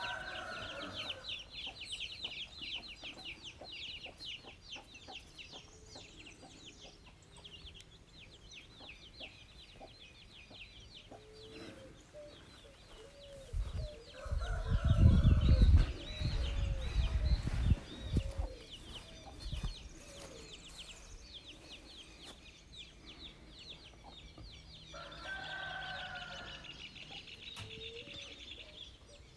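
Farmyard chickens clucking, with a rooster crowing near the start and again near the end, over a constant high-pitched chirping chatter. Midway, a few seconds of loud low rumble.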